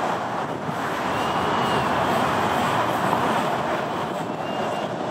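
Steady rushing jet-engine noise from an Airbus A380 rolling out on the runway just after landing.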